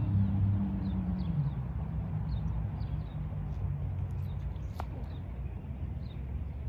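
A car engine fading away over the first few seconds, its pitch dropping, leaving a low steady rumble of traffic, while a small bird gives short high chirps every second or so; one sharp click about five seconds in.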